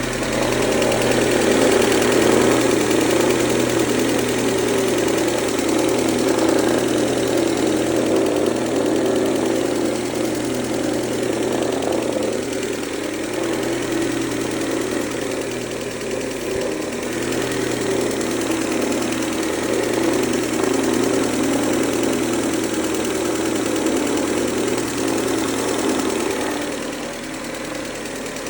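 Mercedes-Benz A140 (W168) engine running steadily with the noise coming from the front of the engine, which the owner suspects may come from the timing chain or chain tensioner.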